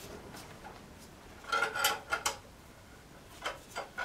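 Metal clamps clinking and rattling as they are handled and snugged onto laminated wooden keel timbers: a cluster of short ringing clinks about a second and a half in, and a couple of fainter clicks near the end.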